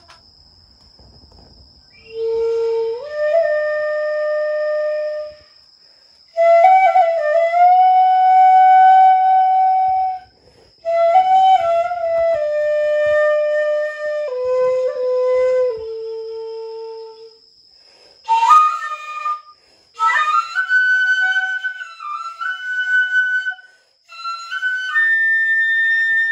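Shinobue (Japanese bamboo transverse flute) playing a slow solo melody: long held notes joined by small slides and ornaments, in phrases with short breaks for breath between them.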